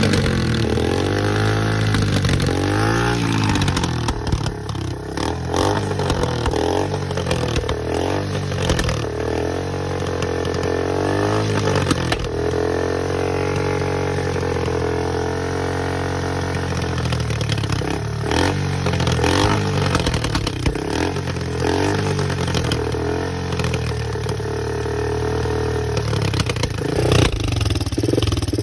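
Kawasaki Bayou ATV's single-cylinder four-stroke engine running on its first start after about 20 years, its pitch rising and falling again and again as the throttle is blipped, then holding steadier for a stretch.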